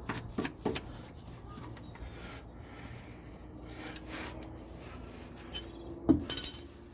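Hand work on metal hardware while fitting nuts onto the shock-absorber bolts: a few light clicks and scraping, then a sharp metallic clank that rings briefly about six seconds in.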